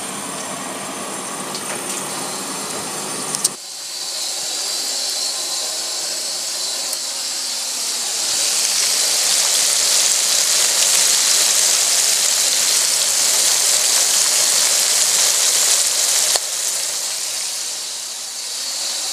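Langoustines and fish sizzling over a charcoal grill, a steady high hiss that grows louder about eight seconds in. Before it, a duller steady noise cuts off suddenly about three and a half seconds in.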